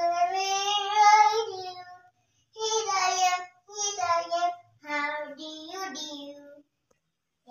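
A young girl singing a children's colours rhyme on her own, without accompaniment: one long held phrase, then three shorter phrases, stopping about a second before the end.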